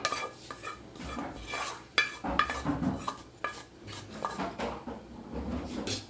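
A wooden spatula scraping and tapping a frying pan, clearing out dry-roasted grated coconut, with irregular knocks of the pan. The pan is also set down on the gas stove.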